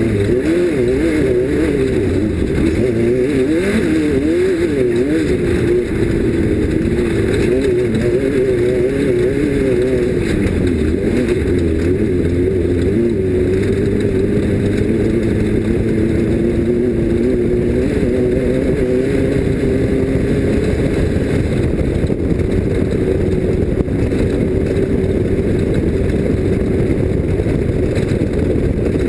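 Off-road race vehicle's engine running hard under racing load. Its pitch wavers rapidly up and down for the first ten seconds or so, then holds steadier, over a constant rush of noise.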